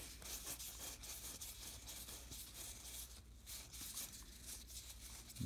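Cardboard baseball trading cards sliding and rubbing against each other as a stack is thumbed through card by card: a faint scratchy rustle with many small ticks.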